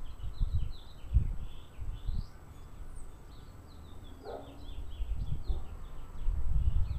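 Many small birds chirping continuously in the background, with irregular low rumbling that swells and fades as the loudest sound.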